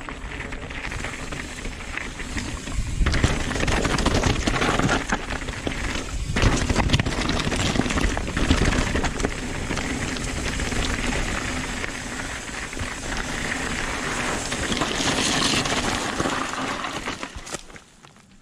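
Nukeproof Dissent 290RS downhill mountain bike riding fast down a rough dirt trail: tyres rolling over loose dirt and rocks with the frame, chain and suspension rattling over the bumps. The noise dies down near the end as the bike slows.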